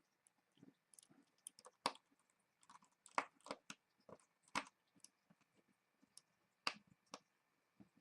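Faint, irregular clicks and ticks of a small precision screwdriver driving tiny screws into the metal cable plate inside an iPhone 5, with a few sharper taps.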